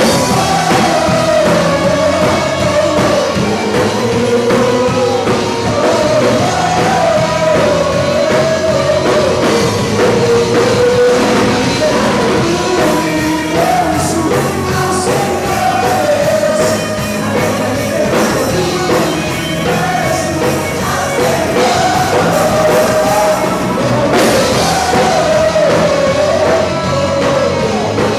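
Live band playing rock-style worship music, with a singer carrying a wavering melody over a steady drum beat.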